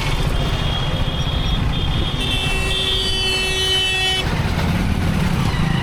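Steady engine and road noise of a motorcycle riding through traffic. A vehicle horn sounds for about two seconds in the middle, with fainter high horn tones just before it.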